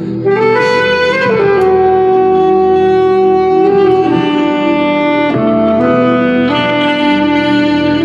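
Alto saxophone playing a slow melody of long held notes over a soft sustained backing. A quick rising run about half a second in leads to a long held note, which steps down around four and five seconds and climbs again near six and a half seconds.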